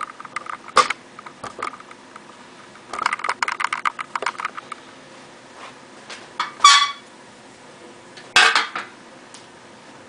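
Dishes and metal kitchenware clinking and clattering: a few separate knocks, a quick run of clinks about three seconds in, then two louder clatters, the first with a short metallic ring.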